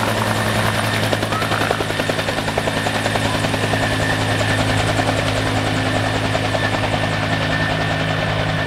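Firefighting helicopter in flight with a water bucket slung beneath it: rotor blades beating rapidly over a steady engine hum.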